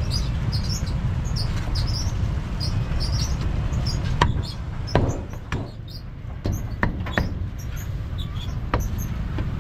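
Cleaver chopping roast pork leg on a thick round wooden chopping block: a string of sharp knocks, irregularly spaced, starting about four seconds in, over a steady low rumble.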